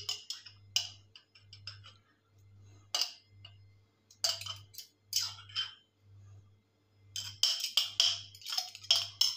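Metal spoon clinking and scraping against the inside of a glass jar as coconut gel cubes are scooped out, in scattered bursts of sharp clinks that come thickest near the end.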